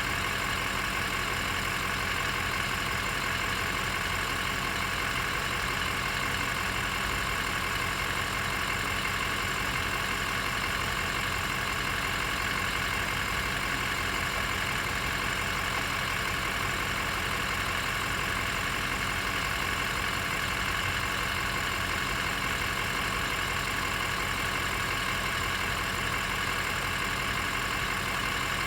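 A steady engine idling, an even hum that does not change.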